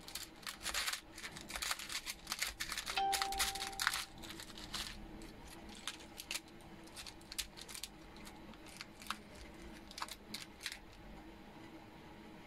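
Glass cartridge fuses and small electronic parts rattling and clicking in a plastic box as fingers sort through it, with a short ringing note about three seconds in. The clicking is busy for the first few seconds, then thins to scattered clicks.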